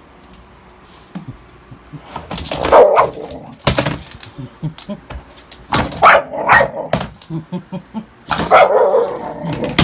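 A dog barking at a bathroom scale on the floor, in several loud bursts that begin about two seconds in.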